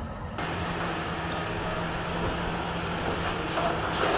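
Demolition machinery running: a steady engine hum under a broad wash of noise, muffled for the first half-second.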